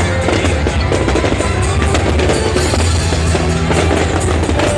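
Loud music with a heavy bass drum beat, with many short sharp bangs and crackles of fireworks mixed in.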